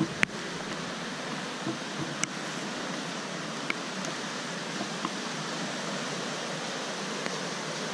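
Steady rushing of muddy floodwater running heavily down a normally dry desert riverbed after a thunderstorm, with a few light ticks.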